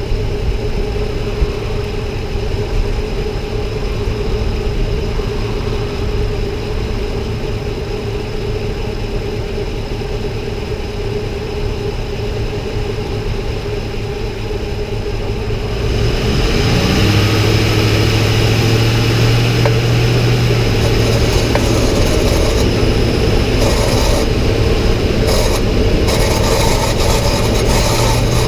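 2006 Ford F-150 pickup running with a steady mechanical drone. About halfway through it gets louder: a short rising tone settles into a strong, steady low hum with more hiss on top, the way it sounds when the accelerator is pressed, which is when the owner hears the unexplained noise.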